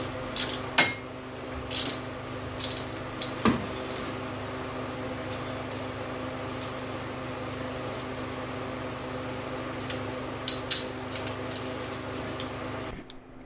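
A hand ratchet clicking and metal tools clinking in the first few seconds as a water pump bolt on a Chevy 350 small-block is worked loose. Then a steady hum runs under the rest, with a couple more metallic clicks a few seconds before the end, and the hum drops away just before the end.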